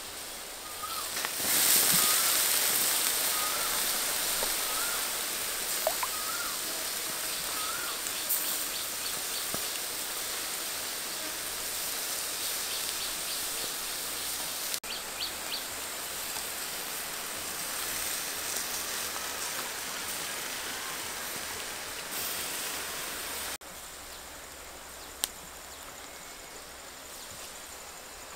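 Steady sizzling of a honey-glazed duck grilling on a wire grate over hot charcoal as it is basted, loudest about two seconds in and dropping to a quieter level near the end. A bird chirps repeatedly in the first several seconds.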